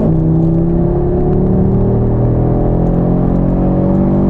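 Audi RS 3's 2.5 TFSI five-cylinder engine accelerating hard, heard from inside the cabin: its note drops at a gearshift right at the start, then rises slowly and steadily as it pulls through the gear.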